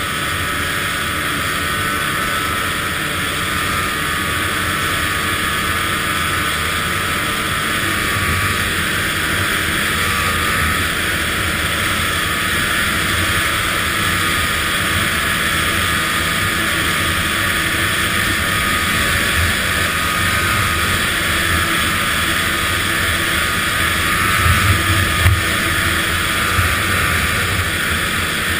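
Arctic Cat ZR 800 snowmobile's two-stroke engine running steadily while riding along the trail, with a few short bumps near the end.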